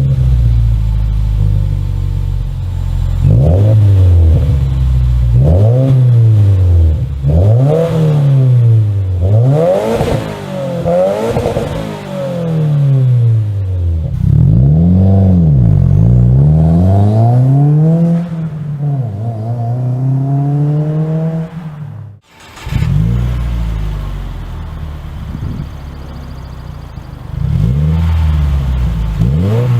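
Aftermarket exhaust on a 2015+ Subaru WRX, whose engine is a turbocharged 2.0-litre flat-four, being revved repeatedly from idle, each rev climbing and then falling back. About two-thirds of the way through, the sound cuts out briefly, then the revving starts again.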